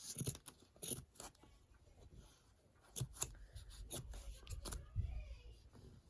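Scissors cutting through cotton fabric: quiet, irregular snips, with a short pause before they pick up again about halfway through.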